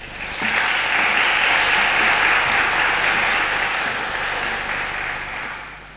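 Audience applauding, starting half a second in, holding steady and dying away near the end.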